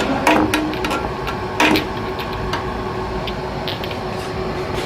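Conveyor induction cap sealer running with a steady hum and a constant low tone. Several light clicks and knocks come over it as glass jars move along the belt.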